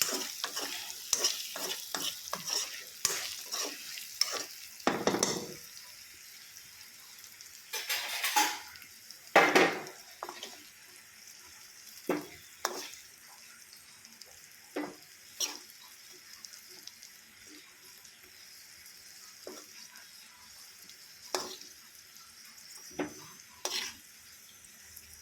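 A spatula stirring stuffed pointed gourd and potatoes in a hot pan of oil, with irregular knocks and scrapes against the pan and a light sizzle. The sizzle is strongest in the first few seconds, and a few louder scrapes come about eight to ten seconds in.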